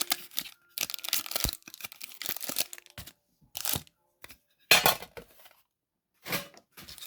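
Plastic shrink-wrap and packaging on a Pokémon TCG mini tin being torn and crinkled in a series of short bursts, with a few sharp clicks as the tin is handled and opened.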